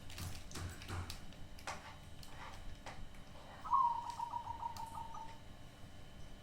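Crossbred zebra dove (perkutut) cooing once, a rapid run of short notes that starts loud and trails off over about a second and a half; its voice is described as strange. Scattered faint clicks around it.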